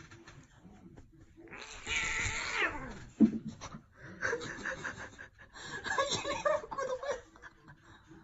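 A cat meowing, with one long cry that falls steeply in pitch about two seconds in, and a person laughing.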